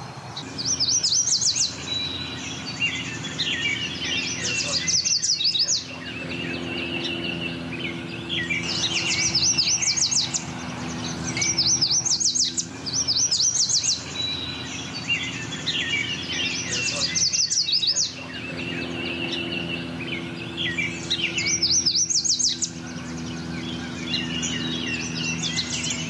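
Yellow warblers singing their high-pitched, very rapid 'sweet, sweet, I'm so sweet' song, a phrase every few seconds, with chipping notes between, over a steady low hum.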